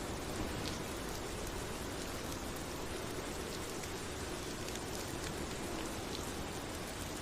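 Steady rain falling: an even hiss of drops with a few separate drop ticks now and then.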